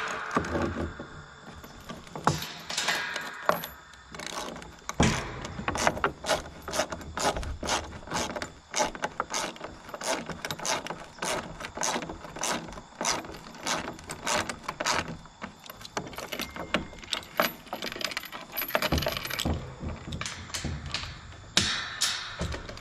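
Link chain rattling and clinking against a metal tube farm gate in many quick, irregular clicks as it is looped around the gate and post and clipped shut.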